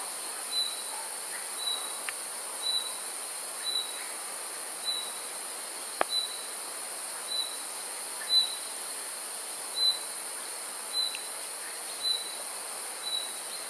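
Insects shrilling steadily at a high pitch, with a short high chirp repeating evenly about once a second. A single sharp click about halfway through.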